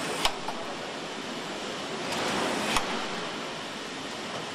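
Steady noise of a car assembly hall, with two sharp clicks about two and a half seconds apart, the first a moment in.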